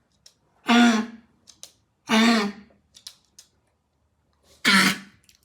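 Shetland sheepdog coughing with kennel cough (infectious tracheobronchitis): three harsh, dry coughs, the third after a longer pause, a gagging cough as if something were stuck in the throat.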